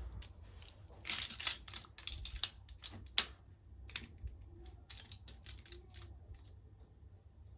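A quick, irregular run of light clicks and taps, with a few sharper ones standing out.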